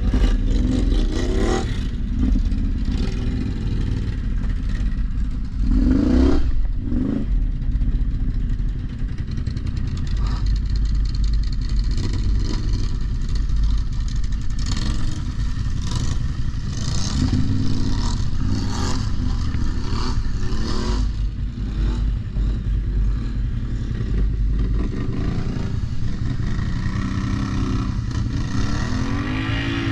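ATV engines running under way, with a steady low rumble and revs that rise and fall, plus clattering from the machines over rough ground.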